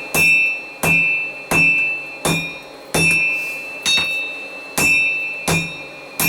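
Hand hammer striking hot steel on an anvil at an even pace, about nine blows, each followed by the anvil's high ringing: drawing out the reins of a pair of tongs by hand.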